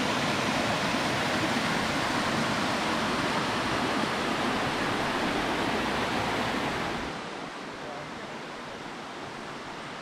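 Small woodland waterfall cascading over rocks into a pool, a steady rush of water. It falls to a quieter rush about seven seconds in.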